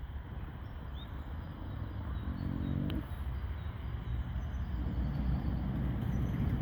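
Horse lying asleep and snoring: a low, rasping snore about two seconds in and another starting near the end, over a steady low rumble, with a few faint bird chirps.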